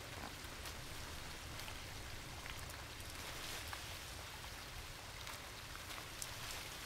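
Soft, steady outdoor hiss with scattered faint light ticks and crackles.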